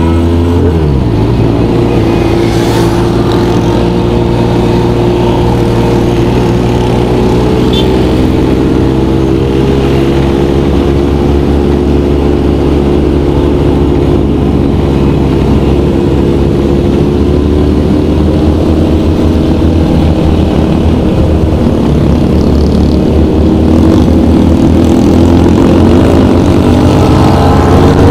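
A motor vehicle's engine running steadily while on the move, over a constant low road and wind rumble. The engine pitch climbs near the end as it speeds up.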